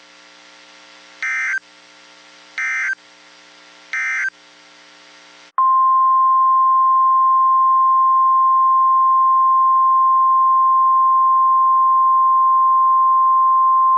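NOAA Weather Radio Emergency Alert System signal: three short bursts of SAME header data about a second and a half apart over a faint steady hum. Then, about five seconds in, the 1050 Hz warning alarm tone starts: one loud, steady, single-pitched tone held for about nine seconds, which announces that a warning message follows.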